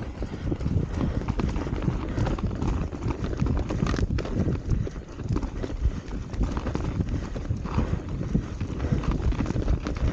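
RAAW Madonna enduro mountain bike ridden fast over a rough, snowy trail: a continuous rattle and clatter of tyres, suspension and drivetrain over the ground, with many short knocks.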